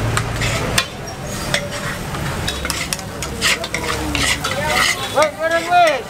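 Spatula and scoop scraping and knocking against a giant wok as a large batch of nasi goreng (fried rice) is stirred and tossed, with frying sizzle underneath. A brief pitched sound rises and falls near the end.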